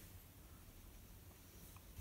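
Near silence: room tone with a faint low hum and a few tiny ticks.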